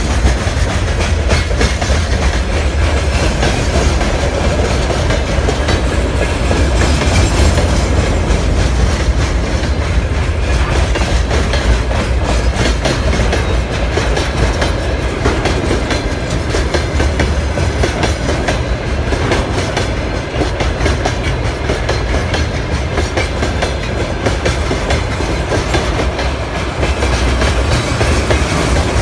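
Freight train wagons rolling past at speed, a steady loud rumble with continuous clatter of wheels over the rail joints.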